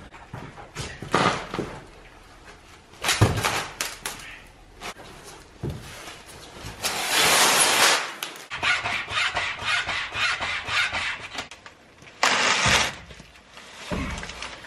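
Handling noises as a heavy transfer case is moved out of its packing and across cardboard on the floor: irregular scraping and rustling with a few knocks. The longest scrape comes about seven seconds in.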